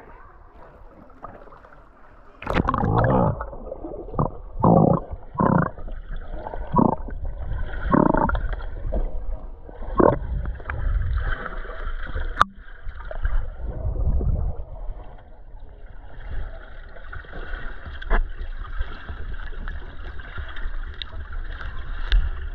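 Water sloshing and splashing in irregular bursts, settling into a steadier rushing hiss of moving water in the last several seconds.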